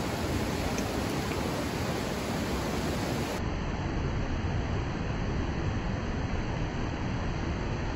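Steady rush of river rapids: an even, unbroken water noise.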